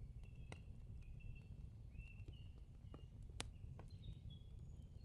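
Near silence with faint bird chirping: short notes at a steady pitch, repeating, with a few soft clicks.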